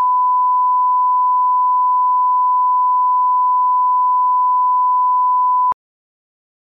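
Steady single-pitch sine test tone, the broadcast line-up reference tone played over colour bars to set audio levels at the head of a programme tape. It cuts off abruptly near the end.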